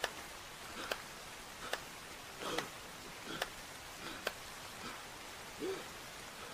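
Steady rain, with a man's short, ragged gasps for breath about once a second as he struggles out of the mud.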